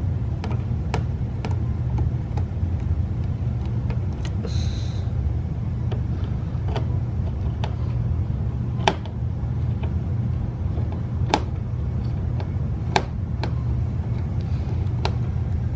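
Screwdriver clicking against the license-plate screws in a car's bumper as they are worked loose, sharp clicks every second or two, over a steady low rumble.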